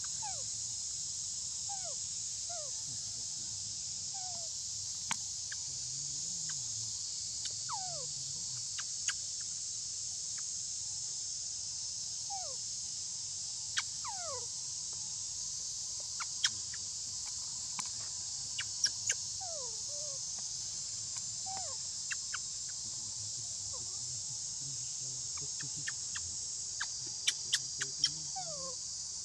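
Steady high-pitched drone of insects, with scattered short calls that fall in pitch and occasional sharp clicks, several of them close together near the end.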